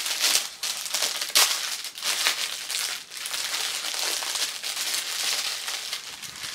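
Clear plastic clothing bag crinkling as it is handled and pulled open, irregular and continuous, with a sharper crackle about a second and a half in.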